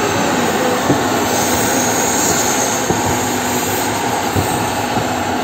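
Steady roar of a passenger train running at speed, heard from on board, with a few sharp knocks as the wheels pass over rail joints.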